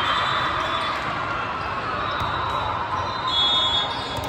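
Gymnasium ambience during play: a spectator crowd's overlapping chatter with a ball bouncing on the court floor. A brief high-pitched tone sounds a little over three seconds in.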